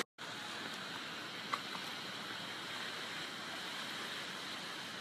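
Steady outdoor background hiss, with a faint click about one and a half seconds in.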